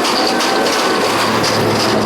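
Racing car engine running hard on a hill-climb course: a loud, steady, rattly engine sound with a faint high whine.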